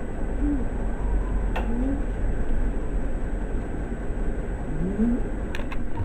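Scottish Fold mix cat snoring loudly: a continuous rough rumble with a few short rising squeaks in it. There is a sharp click about a second and a half in and a few more near the end.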